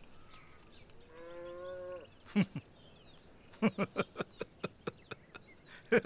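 A cow moos once, about a second long. Then, from past the middle, a man laughs in a quick run of short bursts.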